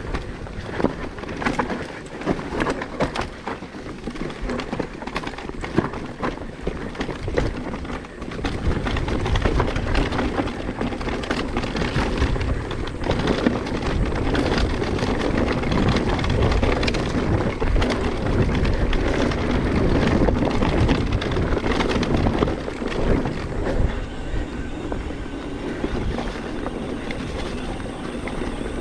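Mountain bike rolling over a rough dirt and stone trail: a continuous clatter of the bike and tyres with many sharp knocks, and a low rumble that gets louder about eight seconds in.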